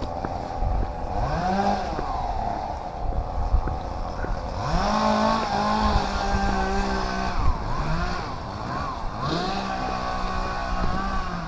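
Two-stroke chainsaw cutting wind-damaged trees: the engine revs up three times, holding a high pitch for a few seconds while cutting and dropping back in between, over a steady engine drone.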